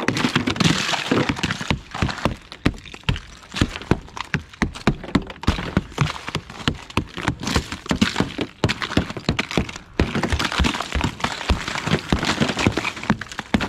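Rubber mallet tapping again and again on a thick glaze of freezing-rain ice coating a truck's windows and hood, several blows a second. The ice cracks and shatters, and broken pieces clatter down.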